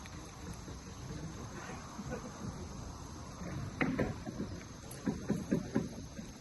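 A dog chewing raw wild boar meat and bone, with irregular short crunches that come in clusters, the densest about four seconds in and again near the end.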